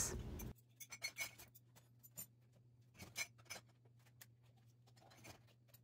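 Faint, scattered clinks and clacks of dishes and glass jars being set into a dishwasher's wire rack, over a low steady hum.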